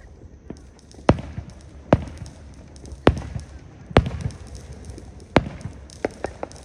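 Fireworks going off: five loud, sharp bangs of bursting shells about a second apart, then a quick run of four lighter cracks near the end.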